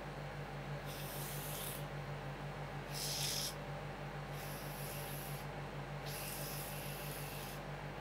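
Metal spatula scraping across the frozen ice cream plate in four separate strokes, each lasting about half a second to a second and a half, over a steady low hum.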